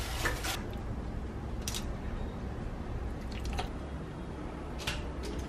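Wet squishing of chicken wings being worked by hand into a thick marinade, with a few short clicks and taps scattered through. A low steady hum runs underneath.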